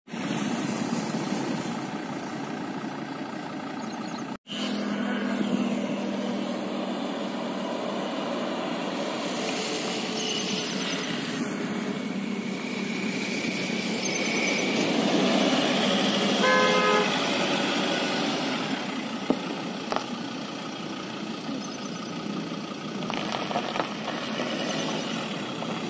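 Car engines running with road and traffic noise, broken by a brief gap about four seconds in. A car horn toots briefly about two-thirds of the way through.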